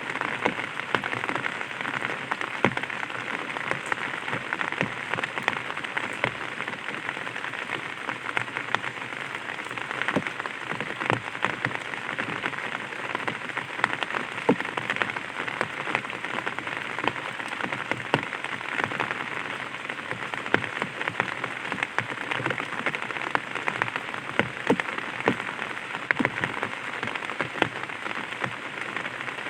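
Light rain pattering on an umbrella: a steady hiss of drops with many sharp individual drop taps scattered throughout.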